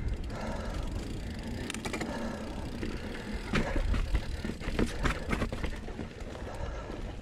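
2019 Santa Cruz Blur C S carbon full-suspension mountain bike riding through a rock garden: tyres rumbling over dirt and rock, with sharp knocks and rattles as the wheels strike rocks, loudest a little past halfway.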